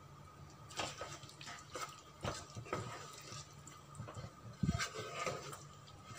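Wooden spatula stirring a thick chicken and potato curry in a pan: irregular wet squelches and soft knocks of the spatula against the pan, with one heavier thump about three-quarters of the way through, over a faint steady hum.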